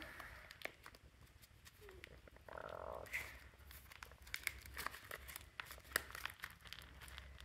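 Faint scattered clicks and crinkling from gloved hands handling oysters and their plastic packaging, with a short crinkly rustle about two and a half seconds in, over a low steady hum.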